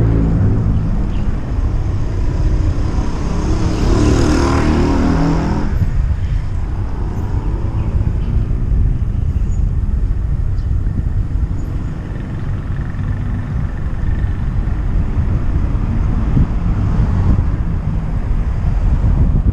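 Road traffic noise with a heavy low rumble, and a motor vehicle passing close about four seconds in.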